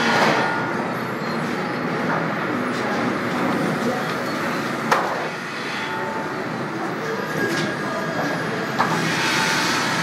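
Sawmill machinery running with a steady, clattering din, and a sharp knock about five seconds in and another near nine seconds.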